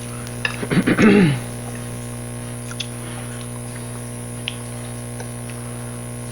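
Steady electrical mains hum, with a brief voice-like sound falling in pitch about a second in and a few faint clicks of eating or utensils.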